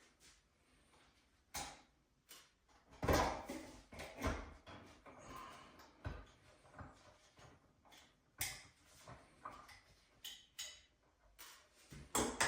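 Scattered clicks, taps and knocks of hand work on electrical wall fittings: switch and receptacle cover plates and devices being unscrewed and pulled from their boxes.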